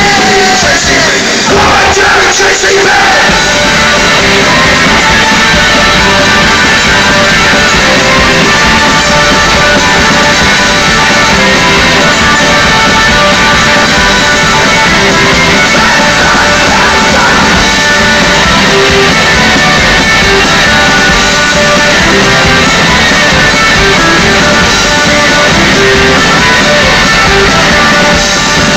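Loud live rock band playing, with distorted electric guitar, bass and drums, and some shouted vocals.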